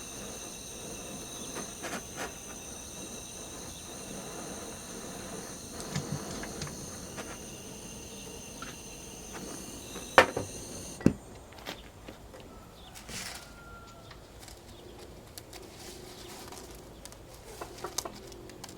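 Insects chirring steadily in several high, even tones, cut off abruptly a little past the middle. Two sharp knocks come just before the cut-off, and scattered light ticks follow it.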